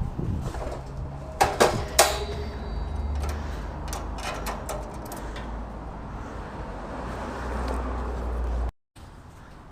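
A few sharp clacks and clatters about a second and a half in, like a door or latch being worked, over a steady low rumble. The sound cuts out abruptly near the end.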